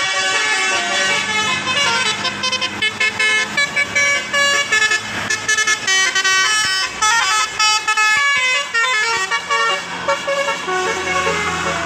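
Bus telolet horn, a multi-note musical air horn, tooting a quick melody whose notes step up and down in pitch, several tones sounding together, with brief breaks between phrases.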